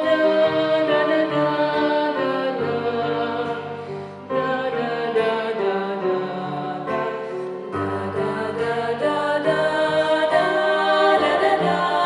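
Music: a female vocal trio singing held notes in harmony over a moving bass line, with a short break about four seconds in.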